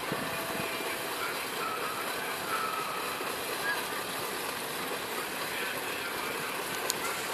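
Steady outdoor background noise with faint distant voices.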